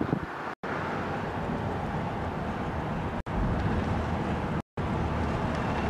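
Steady road and engine noise heard from inside a moving car, broken three times by brief cuts to silence.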